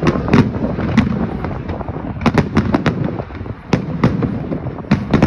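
Fireworks going off: many sharp bangs and pops at irregular intervals, some in quick clusters of four or five, over a steady low rumble of more distant explosions.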